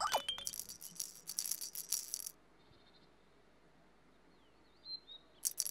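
Rattle or shaker shaken in quick strokes for about two seconds, then a pause, with the rattling starting again near the end.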